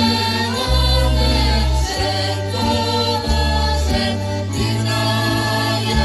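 Choral singing over a full instrumental backing, with a deep held bass note that changes every second or so.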